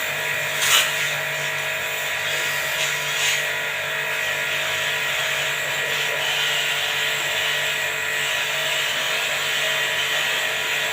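A small electric motor running steadily with a hiss and a low hum, with two brief clicks about a second and three seconds in.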